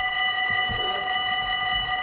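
Dutch level-crossing warning bell ringing steadily, a bright metallic ring with several unevenly spaced tones: the crossing's signals are active.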